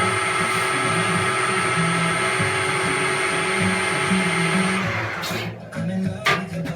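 Harrison M300 lathe spindle and gearhead running steadily at about 800 rpm on a HuanYang variable-frequency drive, with a thin high whine over the motor hum. It stops about five seconds in.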